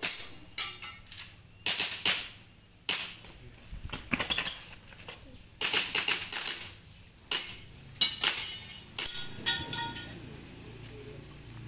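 Airsoft pistol firing about twenty shots in uneven quick strings, each a sharp crack; a few near the end are followed by a brief ring.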